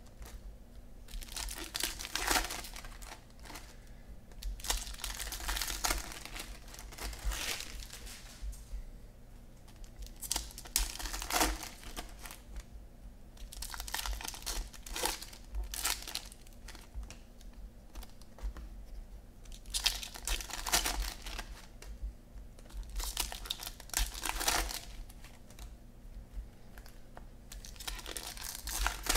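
Foil trading-card pack wrappers crinkling and tearing open, with cards being slid and shuffled by hand, in irregular bursts with short pauses between.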